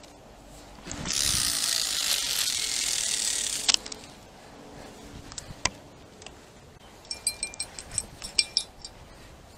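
Baitcasting reel's spool whirring as line pays out on a cast, stopped short with a click about four seconds in. Later a quick run of sharp metallic clicks from the reel.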